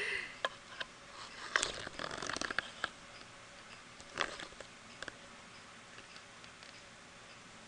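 Faint scattered clicks and rustles, a cluster of them about one and a half to three seconds in and a sharper click about four seconds in.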